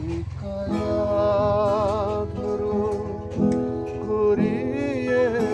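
Music: a voice singing a melody with vibrato over guitar accompaniment, the singing coming in under a second in.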